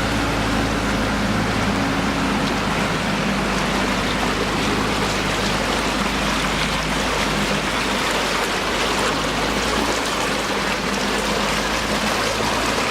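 Floodwater rushing down a city street like a river: a loud, steady rushing. A low steady hum sits under it in the first half and fades out about midway.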